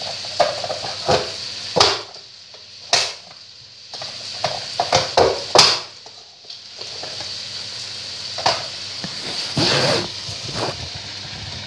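Plastic push-down vegetable dicer chopping carrot sticks into cubes: the lid is pressed down through the grid blades with a series of sharp knocks and crunches, several in quick succession about five seconds in. A steady sizzle of meat and onion frying in a kazan runs underneath.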